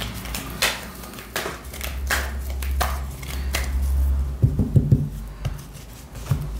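A cigano (Lenormand-style) card deck being shuffled by hand: a regular soft slap of cards about every two-thirds of a second, then a few dull low thumps about two-thirds of the way in.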